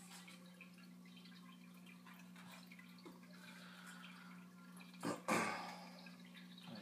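Steady low electrical hum, with a short sharp crackle and a half-second rustle about five seconds in, typical of a trading-card pack being torn open and its cards handled.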